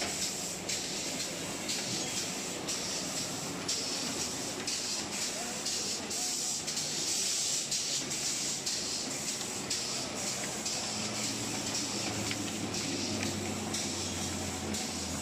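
Ice lolly tube blow molding machine running: a steady high hiss of air, pulsing on and off in quick repeated beats, over mechanical machine noise. A low hum comes up and grows steadier about eleven seconds in.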